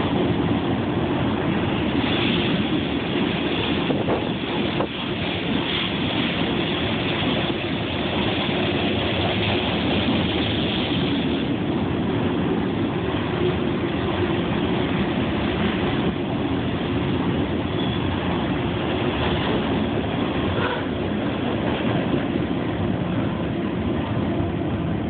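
Empty steel coal cars of a freight train rolling past on the track just below, a steady rumble of wheels on rail.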